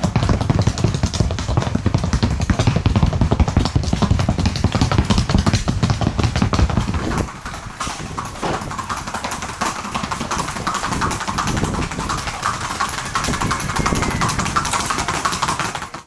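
Rapid, even clatter of a Paso Fino horse's hooves in its fast four-beat gait on a board track, continuous and loud, turning lighter after about seven seconds.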